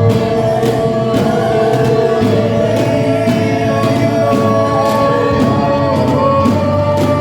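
Gospel music: voices singing long held notes over a steady beat of about two drum strikes a second.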